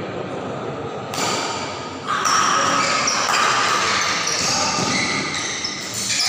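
Badminton doubles rally in an echoing sports hall: sharp racket strikes on the shuttlecock over a crowd of spectators talking and shouting. The crowd noise grows louder about two seconds in.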